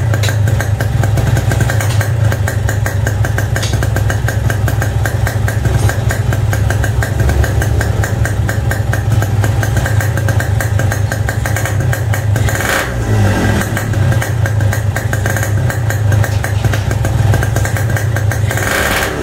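Yamaha RX-King's stock single-cylinder two-stroke engine running steadily at idle through an aftermarket 'cebong' CB31 silencer, with a fast, even exhaust pulse. The note changes once, briefly, about 13 seconds in.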